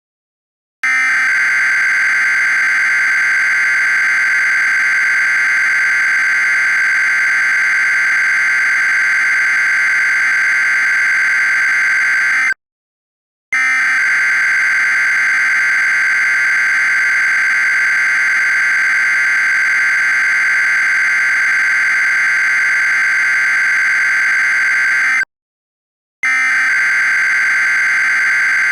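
EAS SAME header data bursts: a harsh, buzzy warbling data tone sent three times, each about 12 seconds long with about a second of silence between. The third begins near the end. The tone is processed with a VHS-tape-style audio effect.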